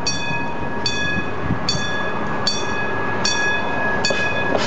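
Talbot railcar T44 approaching and rolling past, while a high-pitched ringing tone repeats evenly about every 0.8 s, each ring lasting a little over half a second.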